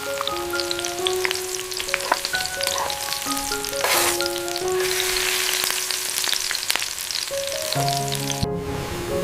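Food sizzling and crackling as it fries in a hot pan, thickest midway through. A soft melody of held notes plays underneath.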